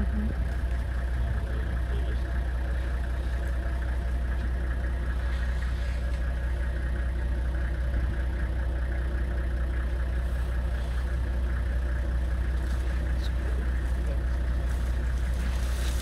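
Safari vehicle's engine idling steadily, a constant low hum.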